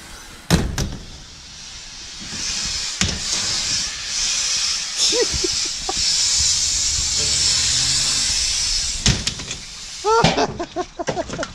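A smoke grenade going off: a steady, strong hiss as it pours out smoke, building about two seconds in and dying away near the end. A sharp knock comes about half a second in, and there are a few short shouts near the end.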